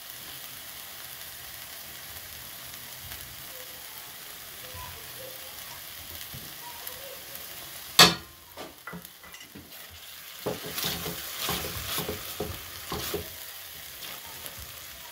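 Thick tomato sauce sizzling gently in a non-stick frying pan, then a single sharp knock about halfway through, followed by a spatula scraping and stirring the sauce around the pan in uneven strokes.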